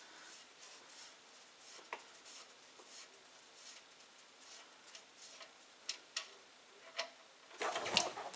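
Faint, scattered clicks and light metal taps of hand tools under the tractor as the oil drain plug is worked on, with a louder short clatter near the end.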